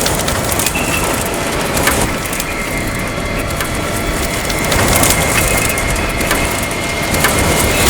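Tornado wind rushing around an armored storm-chase vehicle, with debris striking its body in an irregular scatter of sharp knocks and cracks.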